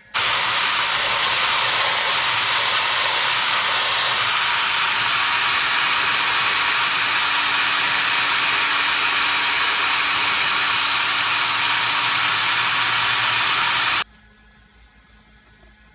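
Electric drill fitted with a sanding attachment running steadily, a loud grinding hiss with a high whine that dips slightly in pitch about a second in and again about four and a half seconds in, as it sands a cut edge. It cuts off suddenly about 14 seconds in.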